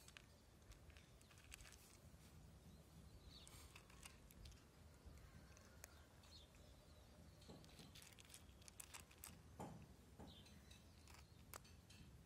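Faint crunching of a cat chewing dry kibble: scattered soft clicks, more of them and a little louder in the second half.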